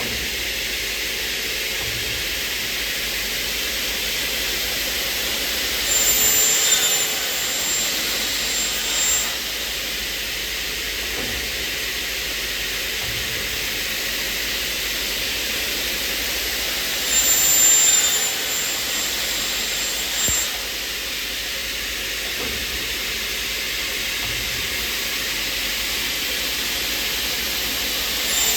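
Aluminum profile circular sawing, drilling and milling machine running with a steady hissing noise. A louder spell with a thin high-pitched whine comes about every eleven seconds: about six seconds in, again after about seventeen seconds, and near the end.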